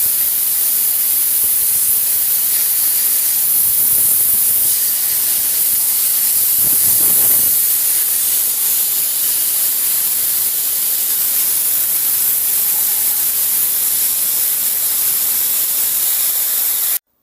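Dimet powder-spraying gun blasting a jet of compressed air and metal powder onto a cracked cast-iron cylinder block, a loud, steady hiss. It cuts off suddenly near the end.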